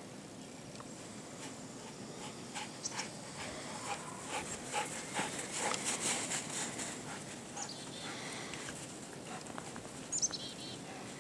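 A dog moving about, with a run of quick clicks and rustles through the middle and a few short, high, falling chirps near the end.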